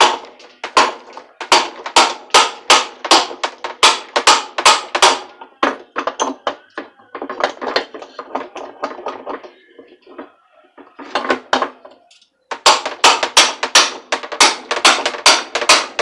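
A hammer repeatedly strikes the handle of a pipe wrench set on a washing machine's rusted tub nut, sharp metal-on-metal blows about three a second, in runs with a couple of short pauses. The nut is seized with rust and is hard to turn.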